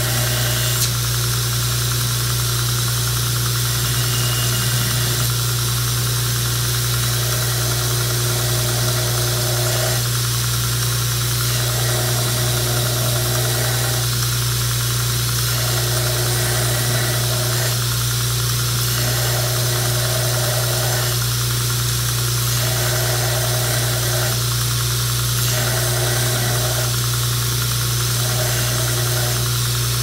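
Belt grinder running with a steady motor hum while a knife's handle scales are ground down flush with the tang against the belt. The grinding sound comes and goes every second or two as the knife is pressed to the belt and eased off.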